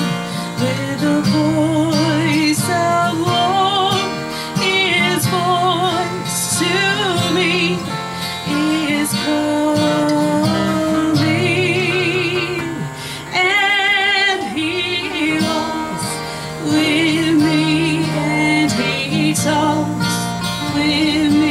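Live gospel band playing a slow hymn on acoustic guitars, bass and keyboard, with a woman singing a wavering, vibrato-rich melody over the chords.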